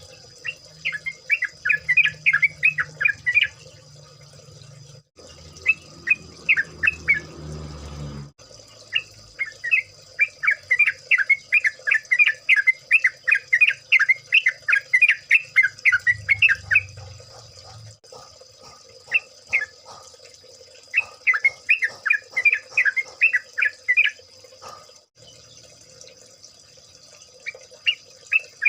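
Yellow-vented bulbuls calling in several bouts of rapid repeated notes, over a steady faint high-pitched hiss and low hum.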